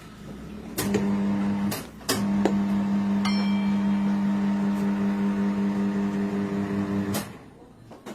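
Tire changer's electric turntable motor running with a steady hum, in a short burst and then a longer run of about five seconds, with clicks as the foot pedal starts and stops it. The turning wheel draws the tyre lever round to work the second bead off the scooter rim.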